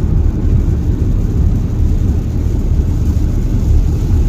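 Car driving on a wet road, heard from inside the cabin: a steady, loud low rumble of tyres and engine.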